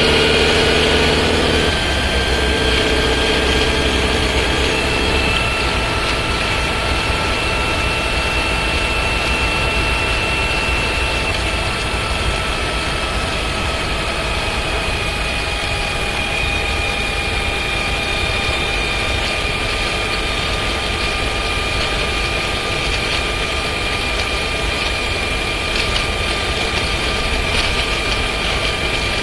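Cabin sound of a Skoda Scala 1.5 TSI with a DQ200 seven-speed dry-clutch DSG driving at steady speed, around 80 km/h: a low engine and road drone with steady whine tones that shift about two and five seconds in. It carries the rattling and vibration that the owner blames on the dry-clutch gearbox.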